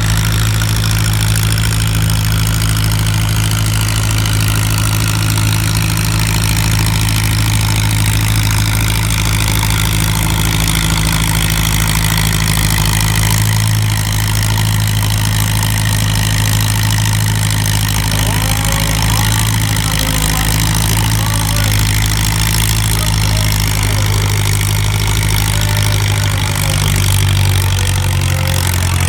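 Old Minneapolis-Moline farm tractor's engine running hard at low RPM, pulling the weight sled in a farm-stock tractor pull. It is a loud, steady drone whose pitch drifts only slightly.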